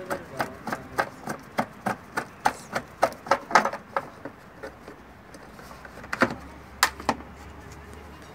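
Rapid sharp clicks and taps of hand tools, about three or four a second, thinning to a few scattered clicks in the second half, as the LPG filter is worked loose and taken out.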